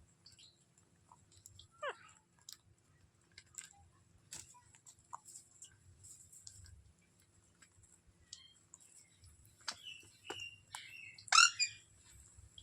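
Indian ringneck parakeet calling: one short falling squawk about two seconds in, then a cluster of harsh calls near the end, the last of them the loudest. Scattered faint clicks come in between.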